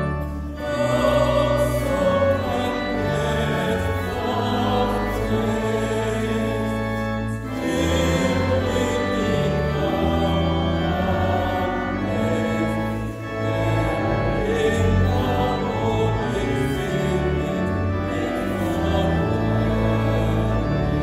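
Church choir singing a hymn to organ accompaniment: sustained organ chords under wavering voices, with short breaks between phrases.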